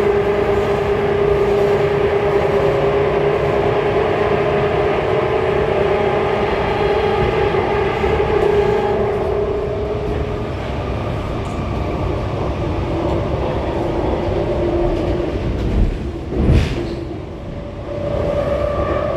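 Interior running noise of an Alstom Movia R151 metro car: steady rolling noise with the traction motors' whine. The whine fades and shifts about halfway through, there is one sharp thump near the end, and a new higher tone comes in just after.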